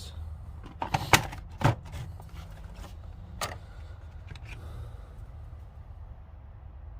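A few sharp clicks and knocks of metal sockets being handled and set down, the loudest close together about a second in and another near the middle, over a steady low hum.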